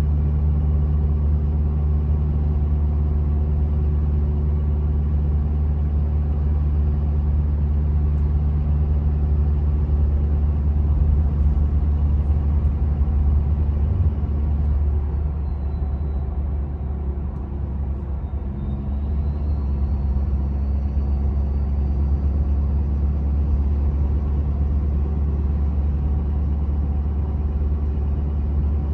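In-cab drone of a 6.7 L Powerstroke V8 diesel through a 4-inch DPF-back exhaust with no muffler or resonator, blended with all-terrain tyre hum while cruising at about 60 mph. The drone eases slightly about halfway through, while a faint high whistle dips and then climbs back.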